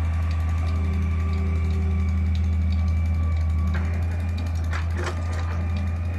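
Diesel engines of an excavator and a Massey Ferguson 385 tractor running steadily at a low hum. About four to five seconds in, there is a rattle as soil and stones tip from the excavator bucket into the loaded trolley.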